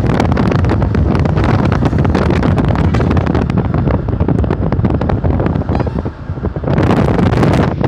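Heavy wind buffeting on the microphone over the low rumble of a large road vehicle, with a louder rush of noise near the end.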